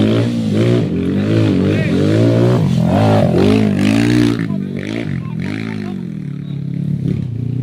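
Motorcycle engines being revved over and over, the pitch rising and falling about once a second above a steady idle, easing off about halfway through.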